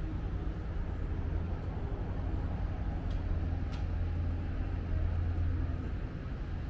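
Steady low rumble and hum of an idling train standing at the station, with two faint ticks about three seconds in.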